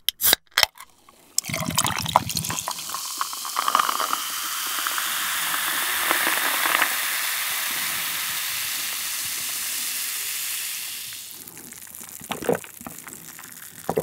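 Soda can cracked open with a couple of sharp clicks, then cola poured over ice into a glass: a steady fizzing pour for about ten seconds that fades away, leaving the bubbles crackling quietly, with a gulp near the end.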